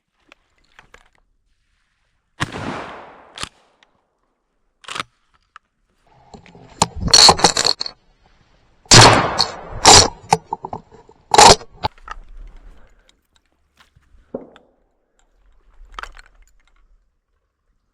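A series of sharp cracks and bangs at irregular intervals, some with a short ringing tail, the loudest cluster about seven to twelve seconds in.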